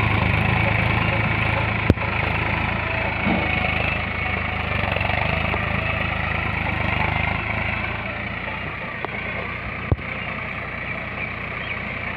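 Mahindra 401 DI four-wheel-drive tractor's diesel engine running steadily as the tractor drives along a furrow, with two sharp clicks, one about two seconds in and one near the end.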